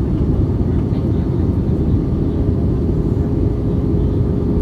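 Airliner in flight: a steady, loud low rumble of engine and airflow noise, with a faint steady hum over it.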